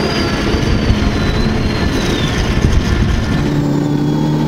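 Heavy farm tractor engines running under load: a loud, rough din with a faint high whine for about three seconds, then a steadier engine drone with a low hum, heard from inside a John Deere tractor's cab.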